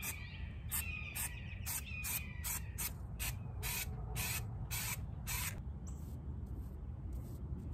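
Aerosol can of Zinsser B-I-N shellac-based spray primer hissing in short spurts, two or three a second, stopping about five and a half seconds in, over a steady low rumble.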